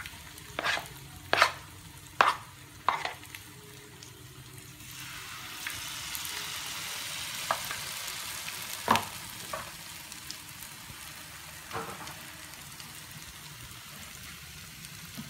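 Battered banana slices frying in hot oil, sizzling, the hiss swelling about five seconds in. Early on about four sharp knocks of a metal spoon at the batter bowl, and a few lighter clicks later.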